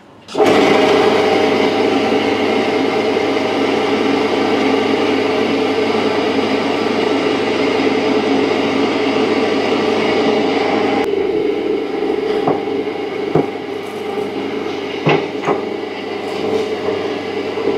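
Electric meat grinder switched on about half a second in, its motor running with a steady hum while meat is minced through the perforated plate. Partway through the high hiss drops away, and a few scattered knocks follow.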